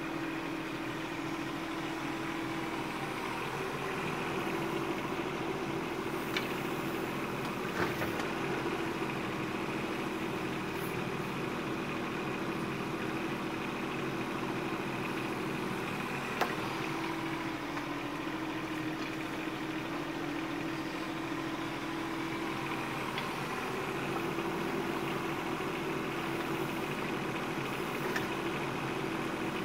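Bobcat 418 mini excavator's diesel engine running steadily while it digs, its note varying slightly as the hydraulics work, with a couple of sharp knocks.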